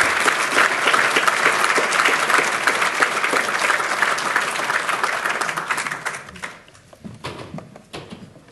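Audience applauding. The applause dies away about six seconds in, leaving a few scattered claps and light knocks.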